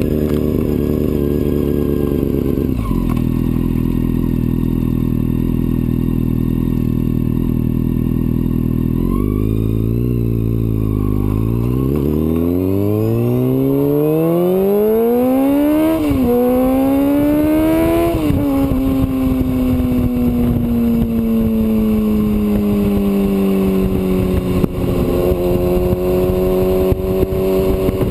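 2005 Honda CBR600F4i inline-four with a Two Brothers aftermarket exhaust, idling steadily, blipped once about a third of the way in, then pulling away. Its pitch rises hard through two quick upshifts about halfway through, then settles into a cruise with the pitch slowly falling.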